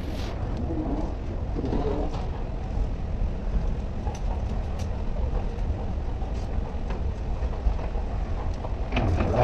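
Steady low rumble of a running escalator heard while riding it down, with a few faint clicks.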